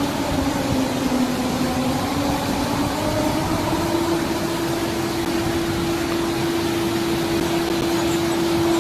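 An emergency alert alarm tone: a steady droning tone with overtones over heavy noisy hiss. Its pitch dips about a second in and rises again around four seconds in.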